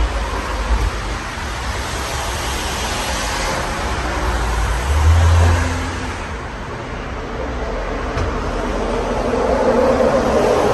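60-inch Fanimation Enigma ceiling fan running, a steady rush of moving air with low wind buffeting on the microphone that swells about five seconds in.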